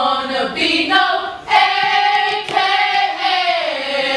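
A group of young women singing together in unison, holding long, sliding notes, with a few sharp claps in the first half.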